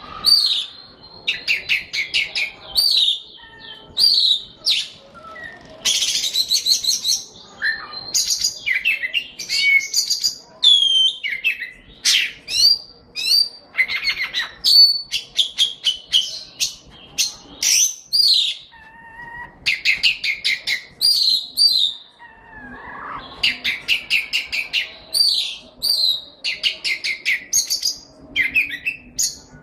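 A songbird singing loudly and continuously in varied phrases of rapid trills, chirps and clear whistled notes, with brief pauses between phrases.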